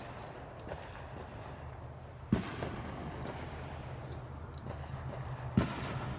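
Fireworks exploding: two sharp bangs, about two seconds and five and a half seconds in, with scattered smaller pops and crackles between them, over a steady low hum.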